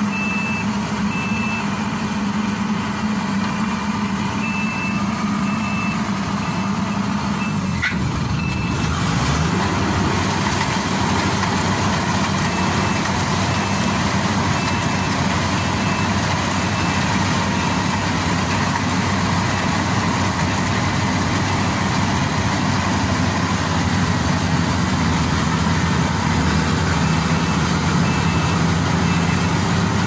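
Crown Sumo rice combine harvester's diesel engine running steadily while it travels on its tracks, with its warning alarm beeping at an even pace. About eight seconds in there is a click, after which the engine's sound changes and the beeping is fainter.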